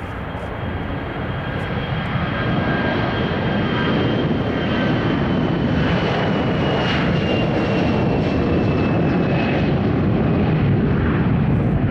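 An Airbus A321-211's CFM56 turbofan engines at takeoff power as the airliner rolls down the runway: a loud rush that grows louder, with a high whine that slides slowly down in pitch as it passes.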